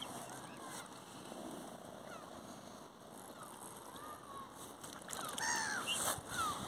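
Water birds calling in short squeaky, swooping squawks, scattered at first, then louder and more frequent about five seconds in.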